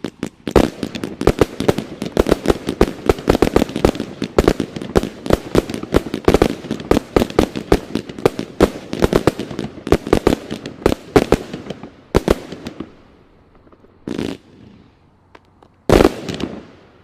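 Consumer fireworks finale cake (Brocade Finale) firing a rapid volley of shots, several a second, for about twelve seconds. After a short lull come two separate bursts, the second one loud.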